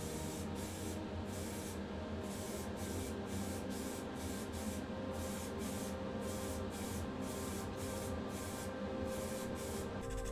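Hand sanding on a diecast metal casting to take out pitting: a steady rasping scrape that breaks off briefly about twice a second as the strokes go back and forth.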